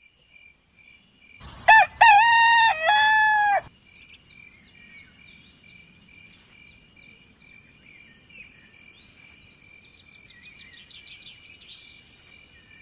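A rooster crows once, loud, for about two seconds, starting about a second and a half in. Small birds chirp after it, over a steady high insect-like buzz.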